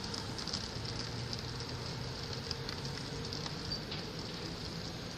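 Railway platform ambience: a steady hiss with light crackling on the microphone, under a faint low hum from an electric train still far off down the line.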